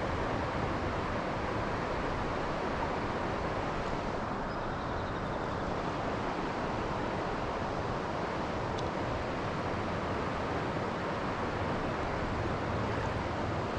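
Steady rush of flowing river water, an even noise with no breaks or changes.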